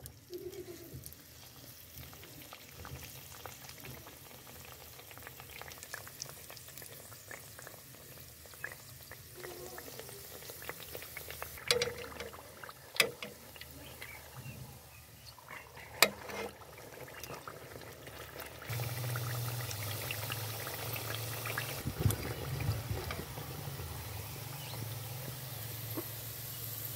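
Hot oil sizzling as a gram-flour (besan) coated naan deep-fries in a steel pan, with a few sharp clicks of metal tongs against the pan. The sizzle grows louder about two-thirds through, and a low hum comes in with it.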